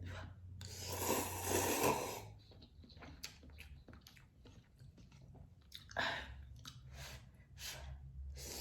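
A person slurping in a mouthful of instant cup noodles, then chewing with many small mouth clicks. A short slurp comes about six seconds in, and a longer one starts near the end.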